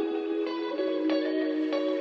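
Background music: a plucked guitar playing a chord pattern, the notes changing every half second or so.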